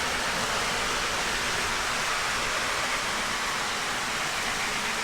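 Several O gauge model trains running together on three-rail track, among them a Lionel GG-1 electric: a steady, even rushing of wheels and motors.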